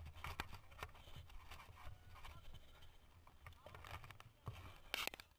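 Mountain bike rolling slowly over grass: a low rumble with scattered small clicks and rattles from the bike, and a short louder burst of noise about five seconds in.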